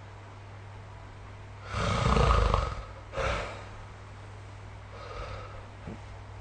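A sleeping person snoring: one loud, low snore lasting about a second, starting about two seconds in, then a shorter, quieter breath sound just after it and a faint breath about five seconds in. A steady low hum sits underneath.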